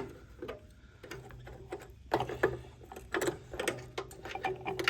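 Socket ratchet clicking in quick runs as a 13 mm bolt is turned loose, the runs coming thicker in the second half.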